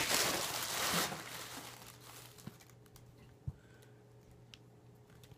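Plastic packaging crinkling and rustling as it is handled, strongest for the first second or two and fading out, followed by a few faint, separate clicks.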